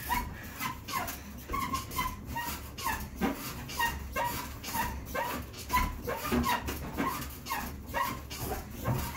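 Elliptical trainer squeaking in a regular rhythm, about two short squeaks a second, over a low steady hum.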